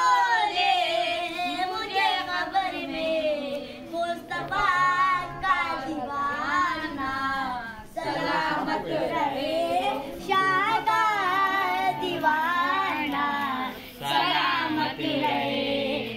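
A boy's voice singing a devotional song with no instruments: long wavering, ornamented phrases, with brief pauses for breath about four, eight and fourteen seconds in.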